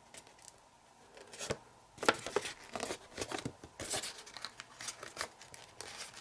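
Folded printer paper crinkling and crackling in short, irregular crackles as fingers squeeze and pinch a thick wad of layered folds. It starts faintly about a second and a half in and grows busier from about two seconds in.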